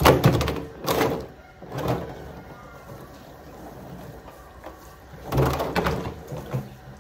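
Large blue plastic silage drum being turned and shifted on paving, making hollow scraping rumbles in bursts: one at the start, two more about one and two seconds in, and a longer one about five and a half seconds in.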